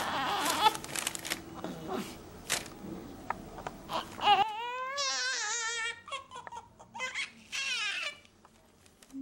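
Newborn baby crying in short wails while its heel is pricked and squeezed for a blood sample. The first half is mostly rustling and clicks from handling. The clearest cries come from about halfway through.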